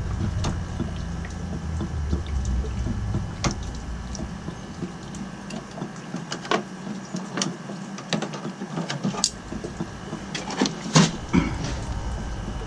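Mini tubing cutter (thumb cutter) being worked around a copper water supply line, giving scattered clicks and scrapes, the loudest about eleven seconds in.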